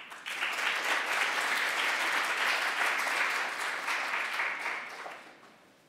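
Audience applauding, the clapping holding steady and then dying away near the end.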